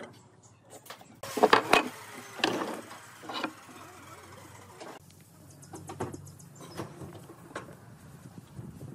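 Wooden boards and a steel square knocking against a wooden workbench as timber is handled and marked: a few sharp knocks, loudest about a second and a half in, then lighter taps.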